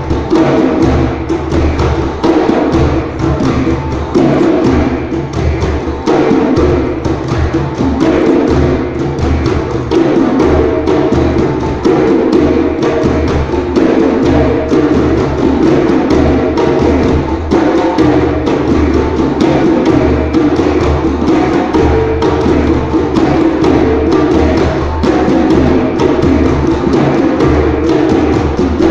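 A group of djembe drums played by hand together, a loud, continuous run of sharp drum strokes in a steady rhythm.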